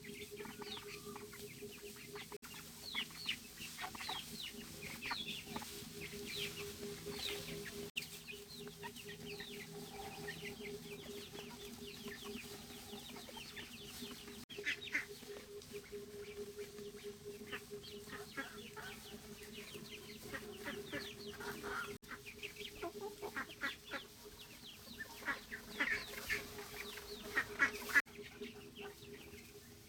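Domestic chickens clucking: many short, scattered calls that get busier and louder near the end, over a steady low hum.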